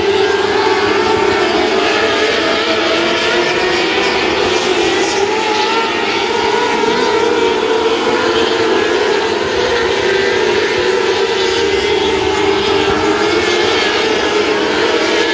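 A pack of 600cc wingless micro sprint cars racing flat out on a dirt oval. Their high-revving motorcycle-based engines blend into one loud, steady engine drone whose pitches waver as cars rise and fall on the throttle through the turns.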